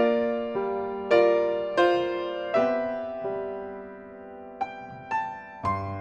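Slow, quiet piano music: chords struck about every second and left to ring and fade, easing off around four seconds in before softer notes resume near the end.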